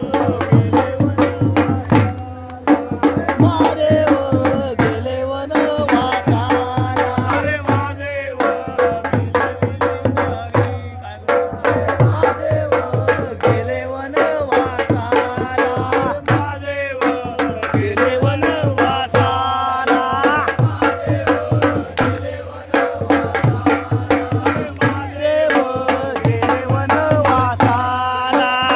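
Jakhadi folk dance music: a hand drum beating a steady, fast rhythm under singing, with a held drone tone beneath.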